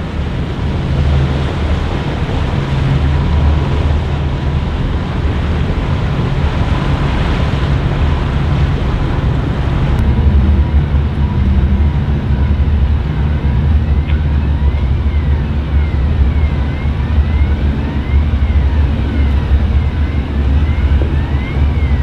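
Car ferry's engines giving a steady deep rumble as it comes alongside and lies at the linkspan, with wind on the microphone. From about 13 s a warning tone slides slowly up and down, over and over.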